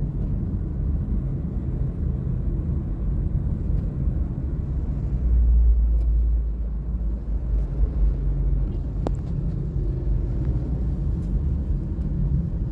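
Vehicle and road rumble from driving in slow, jammed city traffic, swelling louder for a couple of seconds about five seconds in, with a single sharp click near nine seconds.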